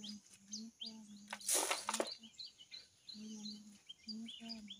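Small birds chirping repeatedly, with a low droning tone that comes and goes underneath. About one and a half seconds in, a brief loud rustle of dry banana leaves being handled.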